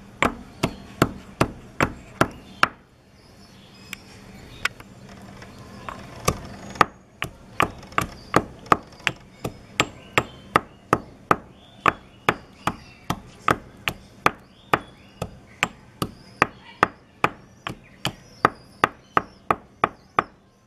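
Pestle pounding onion in a mortar: a steady run of sharp knocks, about two and a half a second, which stops for about three seconds after the first few seconds and then carries on.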